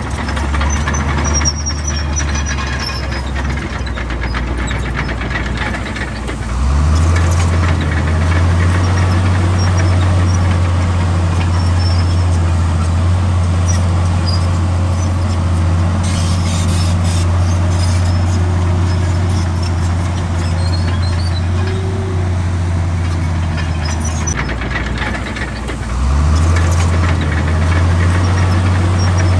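Komatsu D65 bulldozer's diesel engine running under changing load, the engine note rising and getting louder about 7 s in, easing off around 24 s and rising again near the end, with faint high squeaks over it.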